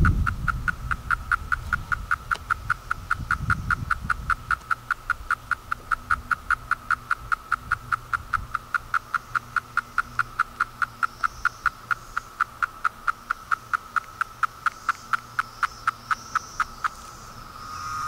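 17-year periodical cicadas calling: an even, pulsed call repeating about four times a second that stops shortly before the end. A low rumble sits under it for the first few seconds.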